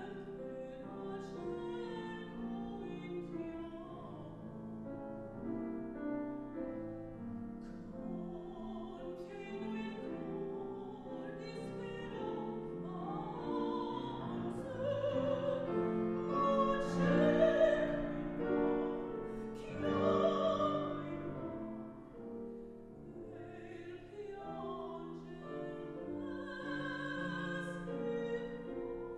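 A woman singing in classical operatic style with vibrato, accompanied by a grand piano. The voice swells loudest in the middle, then falls back.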